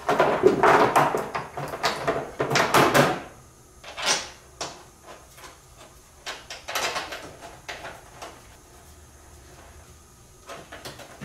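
Parts being handled and refitted on a Kawasaki Prairie 400 ATV: a busy run of knocks and rattles in the first three seconds, a few more around four and seven seconds in, then only occasional light knocks.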